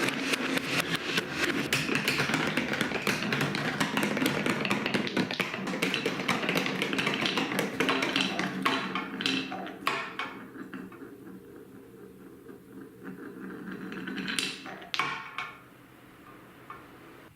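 Many small balls rolling and clattering down TrixTrack wave-slope marble-run track, a dense continuous rattle of clicks. The rattle thins out about ten seconds in, and a few last balls click down near the end.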